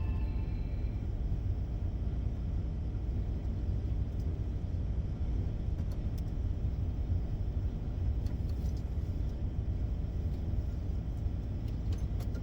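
Van engine running with a steady low rumble. A few short beeping tones fade out in the first second.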